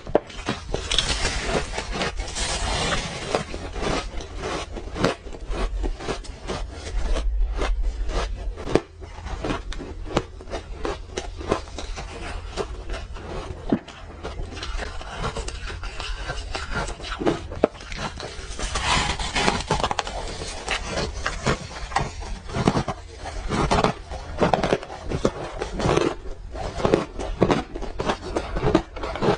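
Close-miked crunching and chewing of frozen orange ice: a dense, irregular crackle of ice breaking between the teeth, thickening into louder bursts of crunching about a second in and again around two-thirds of the way through.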